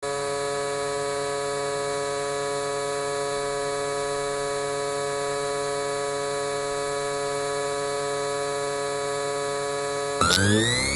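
Steady electronic drone of many held tones sounding together. Just after ten seconds in it breaks off with a click into a louder cluster of tones gliding upward.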